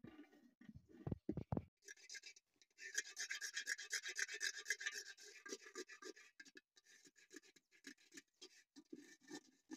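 A hand rubbing and swirling grains in water inside a metal pot, a quick gritty rasping that starts about two seconds in and thins to softer, scattered strokes for the rest of the time.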